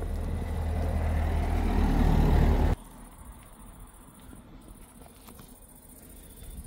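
A motor vehicle's engine running close, with a low steady rumble that grows louder and then cuts off abruptly a little under three seconds in. A quiet outdoor background with faint ticks follows.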